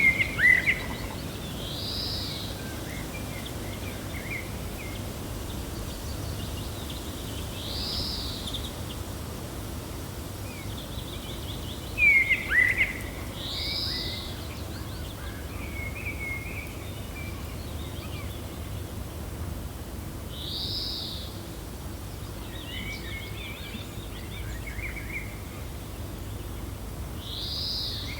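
Birds chirping over a steady low rumble of wind. One bird repeats a short arched call about every six seconds, and louder sharp chirps come at the start and again about twelve seconds in.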